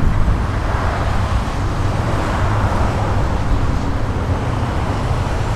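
Zero-turn riding mower's engine running steadily, with an even low hum.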